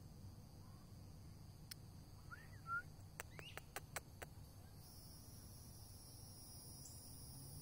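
Faint woodland ambience: a steady high insect chorus that thickens about five seconds in, a brief pair of rising chirp calls about two and a half seconds in, and a quick run of sharp clicks just after.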